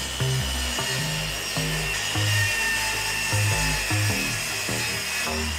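Track saw (a plunge circular saw on a guide rail) running through a wide wooden slab in a straight cut, a steady high whine of blade and motor.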